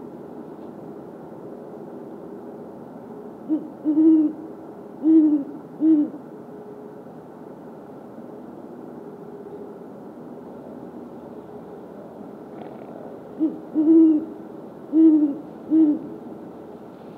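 Male great horned owl giving its territorial hoot: two bouts of four or five deep hoots, about ten seconds apart, over a steady background hum.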